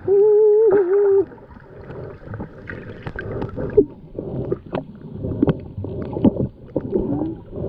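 Water sloshing and gurgling around a camera in shallow sea water, with many scattered small clicks and knocks. It opens with a loud, held voice-like tone lasting about a second.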